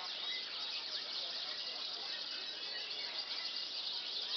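Domestic canary singing a continuous, rapid song of fast trills and chirps.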